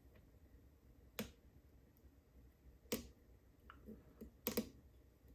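Lock pick working the pins of a PACLOCK UCS-2A padlock under tension: sharp metallic clicks, three louder ones about a second and a half apart, the last a quick double, with fainter ticks between.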